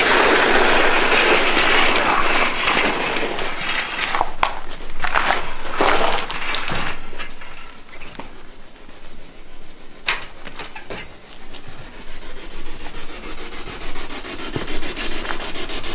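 A loud scraping rustle for the first few seconds, then footsteps crunching on a gritty concrete floor with scattered sharp knocks.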